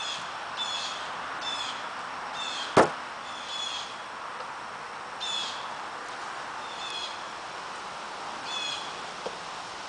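A single sharp knock about three seconds in, as a knife is set down on the canvas-covered table, over a bird's short chirps repeating in the background and a steady outdoor hiss.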